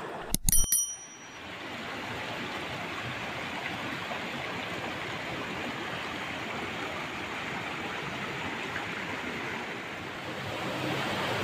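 Small shallow stream rushing over rocks: a steady, even rush of fast water. In the first second, a quick click-and-chime sound effect from the subscribe-button graphic: a few clicks with short ringing bell tones.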